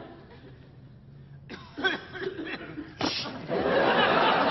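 Audience laughter: quiet for about a second and a half, then scattered chuckles break out and swell into loud, sustained laughter about three seconds in.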